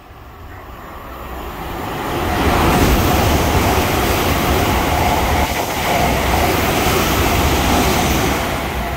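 Thameslink Class 700 electric multiple unit passing through the station at speed: the rush of wheels on rail and air swells over the first few seconds as it comes alongside, holds loud and steady while the carriages go by, and starts to fade near the end.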